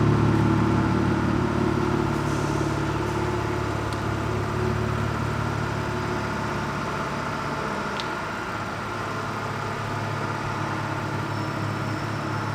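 Lexus IS250's V6 engine idling steadily through an aftermarket Invidia cat-back exhaust, easing slightly quieter over the seconds.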